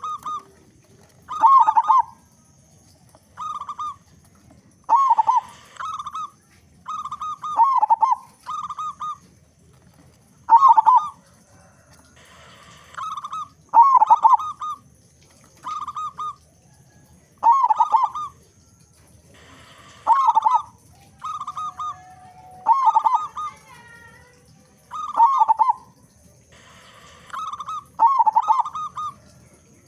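Zebra dove (perkutut) cooing: short, repeated coo phrases of two or three notes, one every second or two.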